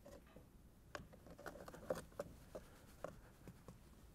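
Faint, scattered ticks and patter of baking soda being sprinkled from a small plastic cup into the sand-layered box.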